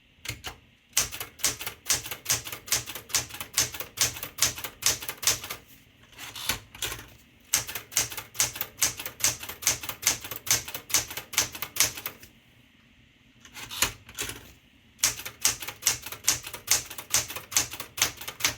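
Smith-Corona Galaxie 12 manual typewriter being typed on, its type bars striking the platen about four times a second. The strokes come in runs, broken by brief pauses about six seconds in and again around twelve to fifteen seconds in.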